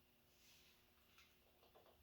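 Near silence, with a few faint light ticks near the end.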